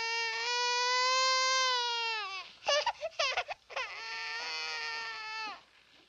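A baby crying: a long wail, then a few short broken cries, then a second long wail.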